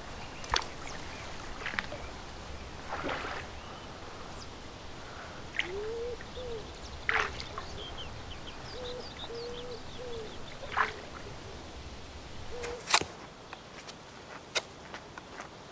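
Birds chirping in a forest, with a short lower call repeating through the middle stretch, over a few light splashes and knocks of someone wading in shallow lake water. Near the end come short sharp strokes of a knife whittling a wooden stick.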